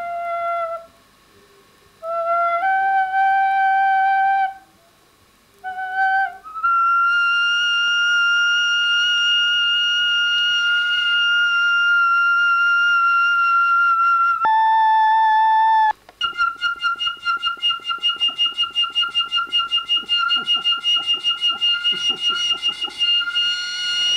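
A flute-like wind instrument playing a few slow, held notes with short breaks between them. The last note pulses rapidly, about five times a second.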